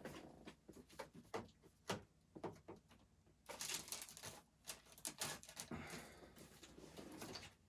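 Faint clicks, taps and rustles of parcels and packaging being handled and set down, with a soft stretch of rustling through the middle.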